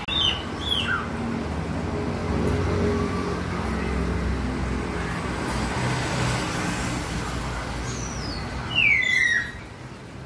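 Short, high-pitched falling chirps just after the start and a louder falling chirp near the end, from a small animal such as a caged marmoset or a bird. A steady low rumble runs underneath.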